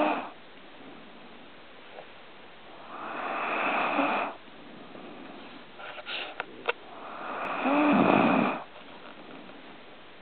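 A sleeping pet snoring: two long snores about four seconds apart, each swelling for a second or so before stopping, after the tail of one at the very start. The snoring is still mild, harmless by its owner's reckoning.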